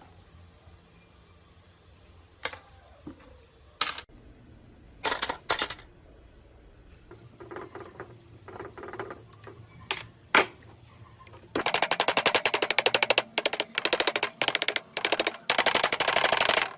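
Scattered clicks and knocks of hard parts being handled, then a fast-rattling power tool runs in several bursts with short pauses over the last five seconds.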